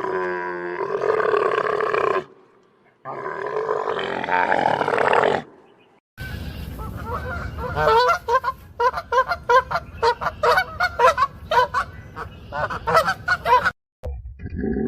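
Animal calls: two long, pitched calls in the first five seconds, then waterfowl honking in a rapid, overlapping run of short calls, several a second, from about six seconds in to near the end.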